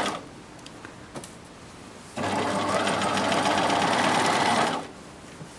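Bernina sewing machine stitching a hem in two runs: it stops just after the start, and after a pause with a few faint clicks it starts again about two seconds in and runs steadily for about two and a half seconds before stopping.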